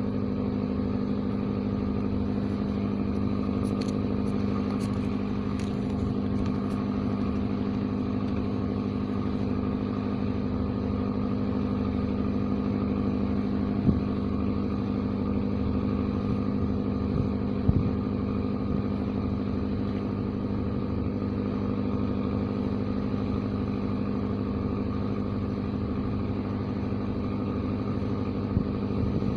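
Engine of a small fishing boat running steadily under way, with a couple of brief knocks partway through.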